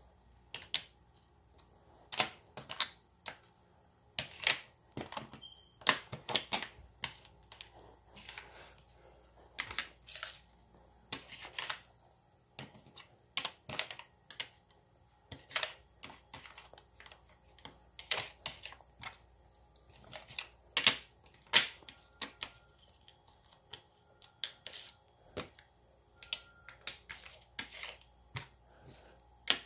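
Toy letters, numbers and plastic tile frames being handled and set down on a hard board: irregular sharp clicks and taps, a few each second.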